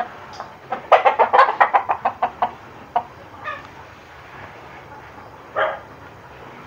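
Gamefowl chicken clucking: a quick run of about a dozen clucks starting about a second in, then two single calls later.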